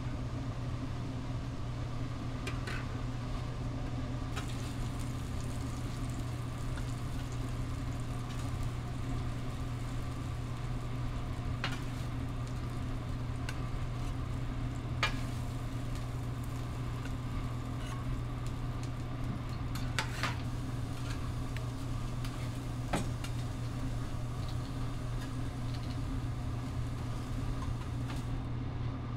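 Steady low hum of a restaurant kitchen with food sizzling on a griddle, broken by a few sharp clicks of utensils.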